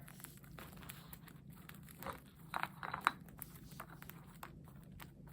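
Faint clicking and scratching of a cockatiel nibbling, over a low steady hum, with a cluster of louder clicks about two to three seconds in.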